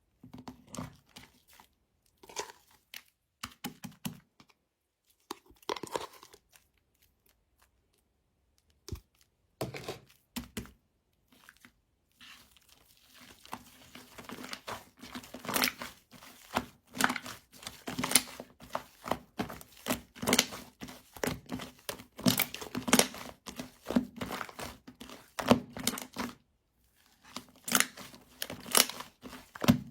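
Fluffy shaving-foam slime being squished and stretched by hand, making crackling, tearing sounds. There are a few separate squishes at first, then near-continuous crackling from about halfway in, with a short break near the end.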